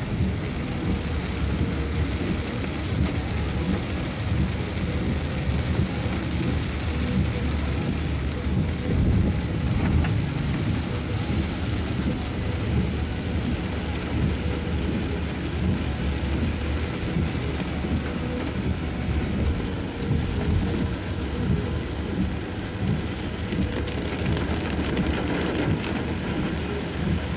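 Steady rain falling on and around a car, heard from inside it over a continuous low rumble from the car and road.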